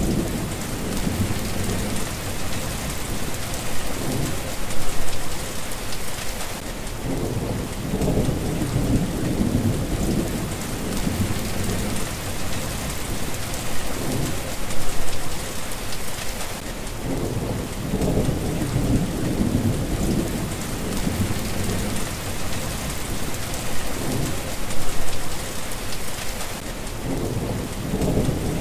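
Steady rain falling, with low rumbles of thunder that swell and fade again every few seconds.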